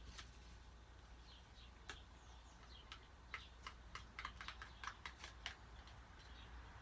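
Faint, irregular light clicks and taps of a spoon and measuring cup against a bowl as hand lotion is scraped in, coming more often after about three seconds. Faint bird chirps behind.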